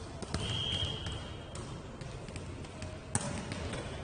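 Football match: a referee's whistle sounds one steady high note for about a second. Around it are thuds of the ball, with one sharp, loud knock of a kick about three seconds in.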